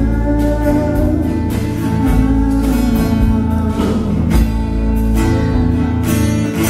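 Live band music: a strummed acoustic guitar over electric bass, playing steadily with regular strokes.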